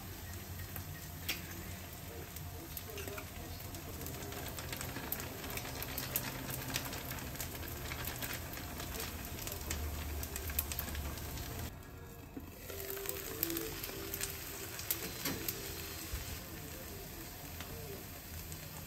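Food sizzling as it fries in a nonstick frying pan on a gas hob, with a wooden spoon scraping and tapping against the pan in scattered clicks. The sizzle drops away briefly near the middle, then carries on.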